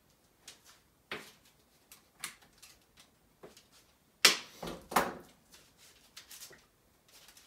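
Cookie scoop clicking and knocking against a plastic mixing bowl and a baking tray while scooping and dropping portions of dough: scattered light clicks, the two loudest knocks a little past halfway.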